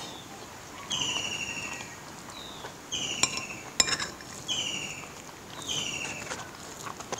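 A metal spoon clinks against a glass serving bowl a few times, sharpest around three to four seconds in, while a bird repeats a short, falling, buzzy call about four times.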